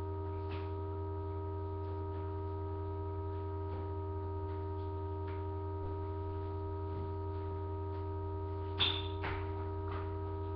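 A steady hum: a constant low drone with several fixed higher tones above it, unchanging throughout, with a few faint clicks, the loudest about nine seconds in.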